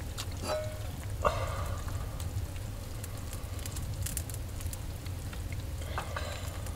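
Food sizzling in a pan on top of a titanium wood-burning stove, with the wood fire crackling in the firebox. A utensil scrapes and clinks against the pan a few times as the food is stirred.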